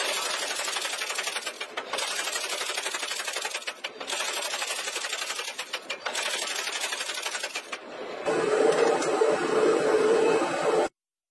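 Small mechanical power hammer striking a red-hot steel bar in a fast, even rattle of blows, with a few short pauses. Near the end a louder, steadier noise with a low hum takes over, then the sound cuts off abruptly.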